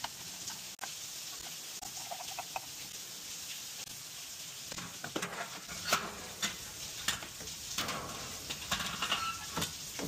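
Clicks, knocks and rattles of hand tools and metal fittings as the burner assembly's tubes and wires are worked loose from a gas water heater's control valve, coming more often from about halfway through, over a steady hiss.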